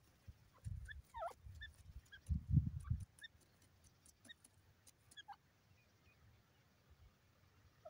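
Faint, scattered short bird chirps over two brief bursts of low rumbling, one about a second in and one near the middle.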